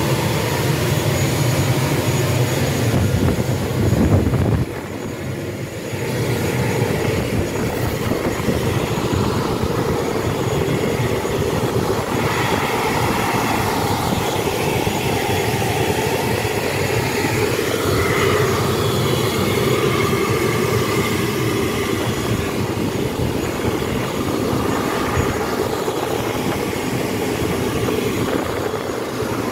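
Steady vehicle noise, a continuous rumble and rattle, briefly louder about four seconds in and then dipping for a moment before it settles again.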